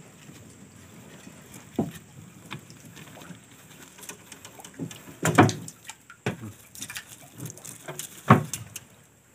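Water and small fish dripping and pattering from a wet dip net into the river through an opening in a wooden raft deck. There are three dull knocks on the wooden planks.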